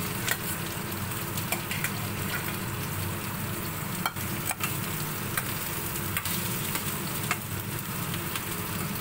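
Sliced patola (sponge gourd) sizzling as it fries in oil with garlic in a frying pan, stirred with a utensil that clicks against the pan now and then.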